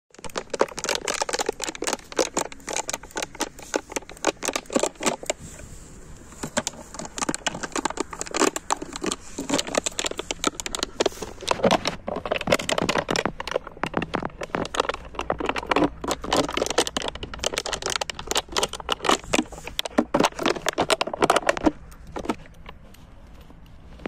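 A German Shepherd chewing and tugging at a plastic bottle: dense crinkling and crunching of the plastic, which stops near the end.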